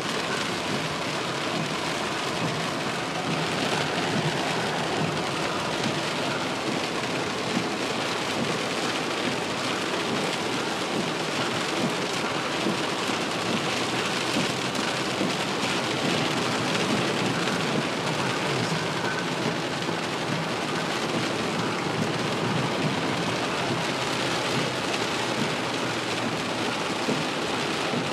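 Heavy rain pelting a car's roof and windshield, heard from inside the cabin as a steady, dense hiss.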